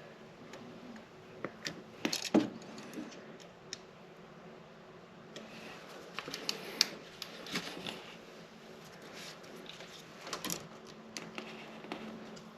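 Scattered sharp clicks and light metallic clatter of hand tools and switch wiring being handled, with the loudest knocks about two seconds in and again near seven seconds.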